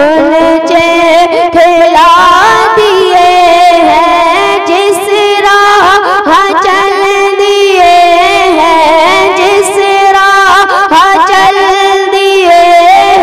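A boy's solo voice singing an Islamic devotional kalam (naat) into a microphone, holding long, drawn-out notes that waver and bend in ornaments, with brief breaths between phrases.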